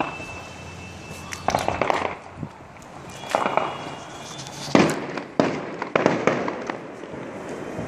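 Several short bursts of rapid gunfire, each a quick string of sharp cracks. There are about five bursts over the few seconds, and the loudest comes near the middle.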